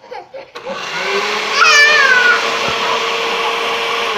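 Electric kitchen blender switched on about half a second in. Its motor spins up and runs at a steady whine with a loud whir, then winds down near the end. Partway through, a short high cry that falls in pitch sounds over it.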